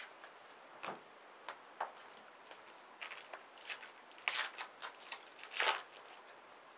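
Trading-card pack being torn open and the cards inside handled: short, scattered, faint rustles of the foil wrapper and flicks of card stock, the loudest twice in the second half.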